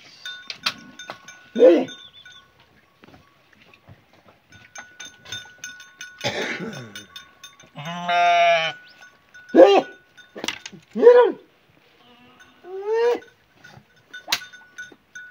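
Sheep bleating: about six separate calls, the longest a wavering bleat a little past the middle.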